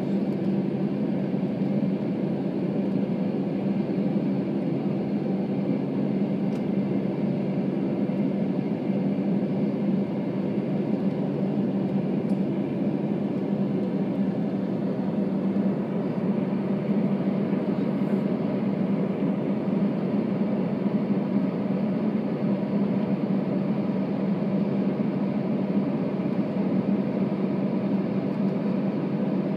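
Steady cabin noise of a jet airliner taxiing onto the runway, its engines at low thrust: an even drone with a low hum that neither rises nor falls.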